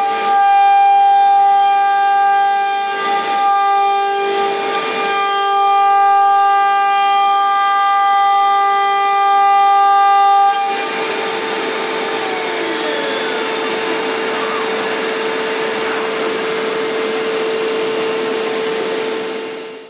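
Multicam 2412 CNC router's spindle running with a steady high whine of several held tones as it cuts a clear plastic sheet, with swells of cutting noise now and then. About ten seconds in the sound changes abruptly to a steadier hiss under a single held tone, with a few falling tones.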